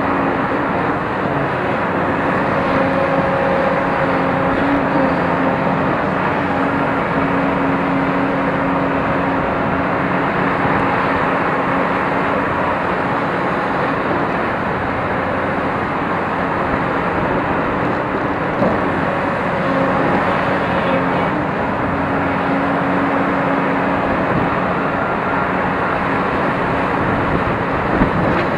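Cat 349L hydraulic excavator's diesel engine and hydraulics running steadily under load as it digs and loads soil into a dump truck, with a constant hum of tones over the engine noise. A short knock comes about two-thirds of the way through and another near the end.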